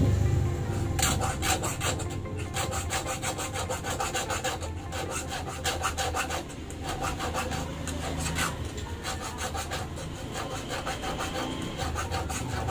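Fine hand file scraping back and forth along the steel blade of a small pair of scissors, about four quick strokes a second with brief pauses, putting a cutting edge on the blade.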